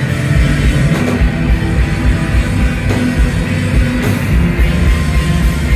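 Instrumental post-rock band playing live: loud, dense electric guitars over bass and a pulsing drum kit, heard from the audience floor of a club.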